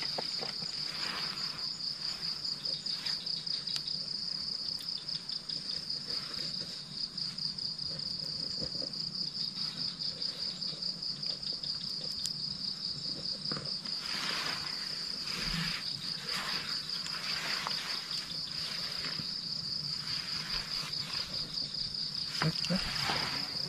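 A chorus of night insects, cricket-like, chirping in a steady, fast, even pulse at a high pitch.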